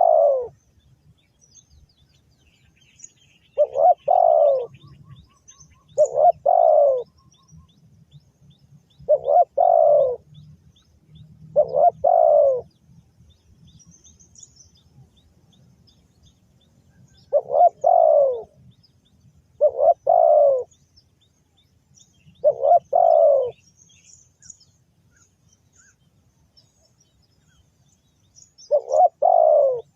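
Spotted dove cooing, a short falling multi-note coo phrase repeated nine times at uneven intervals. Faint high chirps of small birds are in the background.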